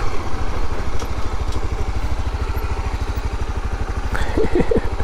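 Motorcycle engine running steadily as the bike rolls along a dirt track, its exhaust pulses fast and even.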